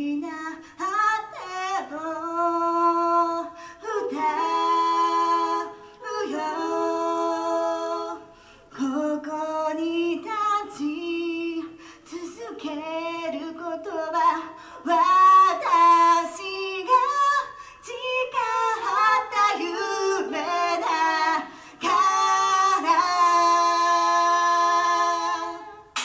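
Female voices singing a cappella, with no instruments or beat under them, in phrases separated by short breaths.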